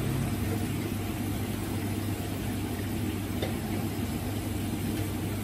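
Chicken frying in a large wok of bubbling oil over a gas wok burner: the burner's steady low roar under the sizzle of the oil, with the ladle knocking against the wok once, a little past the middle.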